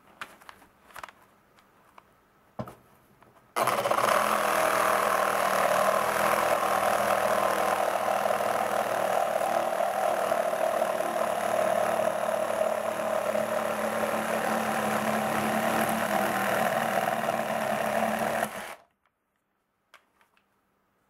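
Makita JR144DRF 14.4 V cordless reciprocating saw with a Z-saw wood-cutting blade sawing through a 2x4 board clamped in a vise. After a few light handling clicks it starts about three and a half seconds in, runs steadily for about fifteen seconds through the cut, and stops abruptly once the board is cut through.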